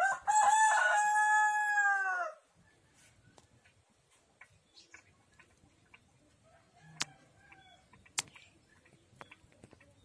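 A rooster crowing once, loud, in the first two and a half seconds: a long held call that drops in pitch at its end. A fainter short call follows about seven seconds in, along with a couple of sharp clicks.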